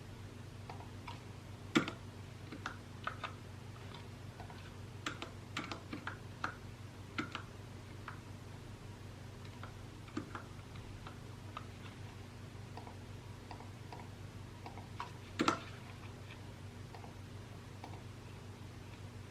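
Mechanical keyboard typing in scattered, irregular keystrokes, with two louder knocks, one about two seconds in and one near fifteen seconds, over a steady low hum.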